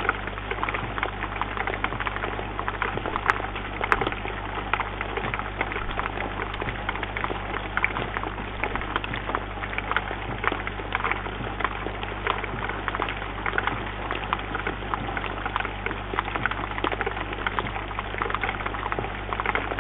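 Steady rain falling, with raindrops pattering densely on a bird feeder close to the microphone and two sharper clicks about three and four seconds in.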